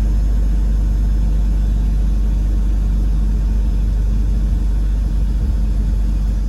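2001 BMW 320Ci E46's 2.2-litre straight-six idling steadily and evenly on its first run after about eleven months in storage, smooth with no misfire.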